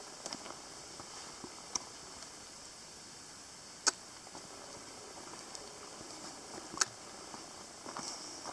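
Quiet woodland ambience: a steady faint high hiss, broken by a few sharp, isolated clicks, the loudest about four seconds in and another just before seven seconds.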